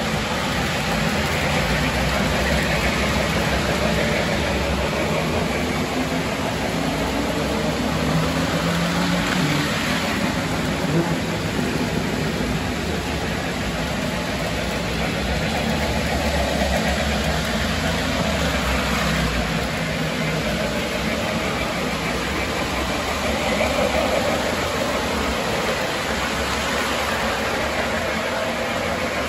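Model train running on its layout track: a steady motor hum with the rumble of wheels on rail.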